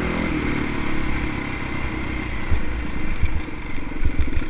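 Yamaha dirt bike's single-cylinder four-stroke engine running at fairly steady revs on a rough trail, with a few low thumps from bumps in the second half.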